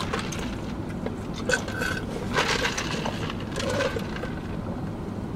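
A man drinking from a large paper fountain-drink cup, with a few short gulping and liquid-moving sounds spread through, over a steady low background hum.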